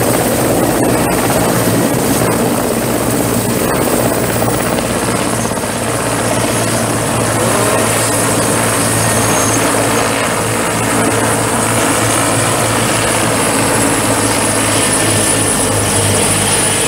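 Mil Mi-17-type military transport helicopter running on the ground just after landing, rotors turning. A steady, loud low rotor drone lies under a thin high turbine whine that slowly sinks in pitch.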